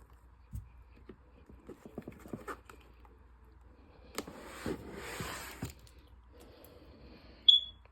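Handling noise of snake enclosures: scattered small clicks and knocks, then a longer scraping rustle for about a second and a half, and near the end one short, sharp, high squeak, the loudest sound.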